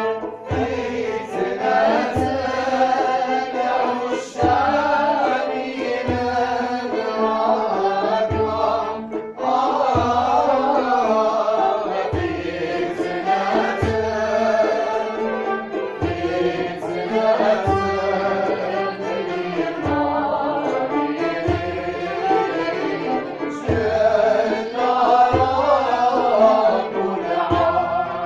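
Andalusian nouba music in the Tlemcen style: a group of voices singing the melody together over bowed strings, with a low drum stroke about every second and a half.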